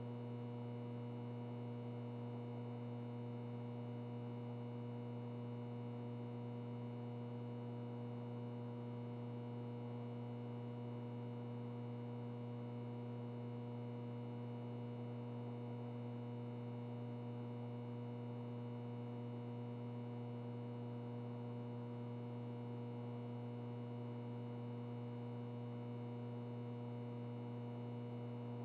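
Ventilation noise with a light electrical buzz: a steady low hum with a stack of higher overtones over a soft, even rush of air, unchanging throughout.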